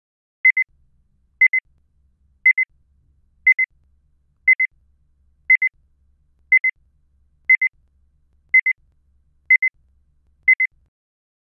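Electronic alarm-style beeper sounding a high-pitched double beep once a second, eleven times, then stopping.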